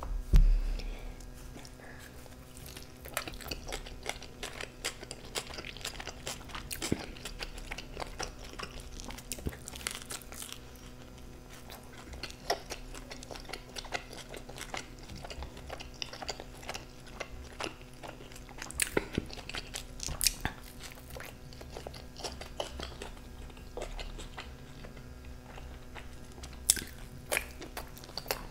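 Close-miked eating: biting into and chewing a slice of veggie pizza, with a steady stream of irregular wet mouth clicks and small crunches of the crust. A single thump right at the start is the loudest sound.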